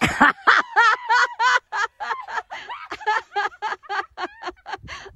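A woman laughing: a long run of quick, high-pitched giggles, about five a second.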